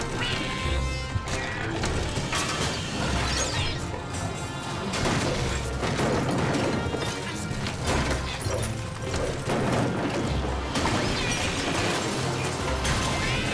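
Cartoon background music under slapstick sound effects: rattling and clattering, with crashes as store shelves topple and metal shopping carts and cans are knocked about.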